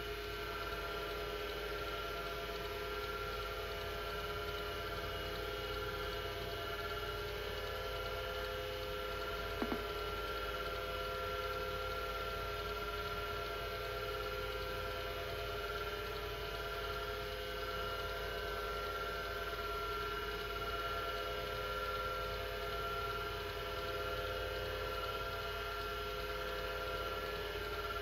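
Apple Widget 10 MB hard disk drive running with a steady whine, with a single short click about ten seconds in.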